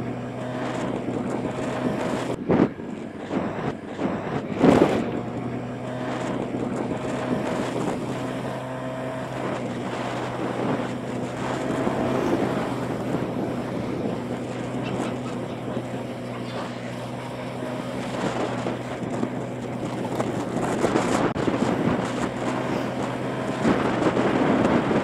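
Motorbike engine running at a steady cruising speed, with wind rushing over the microphone. Two loud wind gusts hit about two and a half and five seconds in, and the wind grows louder near the end.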